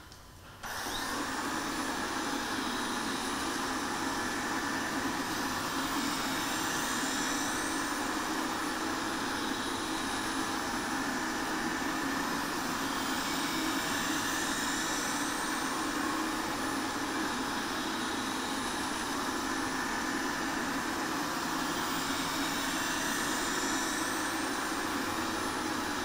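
Xiaomi Mi Robot Vacuum Mop Pro robot vacuum running steadily while returning to its charging dock, its motor noise starting suddenly about half a second in.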